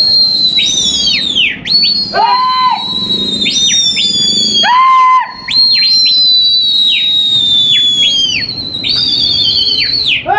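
Several people whistling loudly, one long shrill whistle after another and often overlapping. Each is held for a second or two and drops in pitch as it ends. Two lower-pitched whistles come about two and five seconds in.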